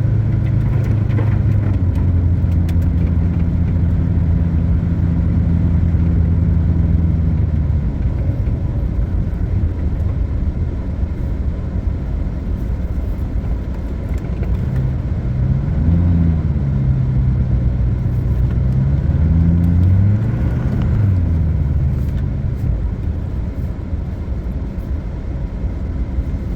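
A vehicle's engine and road noise while driving, heard from inside the cab: a steady engine hum for the first several seconds, then the engine pitch rising and falling twice in the second half as it speeds up and eases off.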